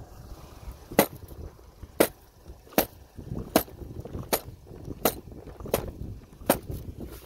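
Eight sharp knocks at a steady pace, about one every three-quarters of a second, as the snow-packed tire of a Traxxas X-Maxx RC truck is knocked against the pavement to shake out the snow.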